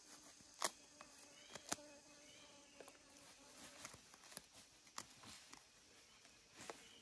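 Feathers being plucked by hand from a small bird, with a few sharp clicks and soft rustling, and a fly buzzing steadily for about two seconds about a second in.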